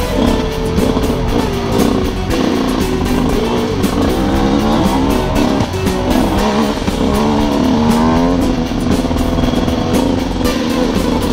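GasGas EC125 two-stroke enduro motorcycle engine under way on a trail, its pitch rising and falling again and again as the throttle is worked on and off.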